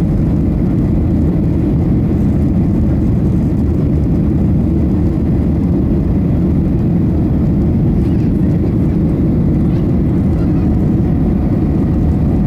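Steady cabin noise inside a Boeing 737-800 climbing out after takeoff: a constant low rumble of its CFM56-7B engines and the airflow over the fuselage.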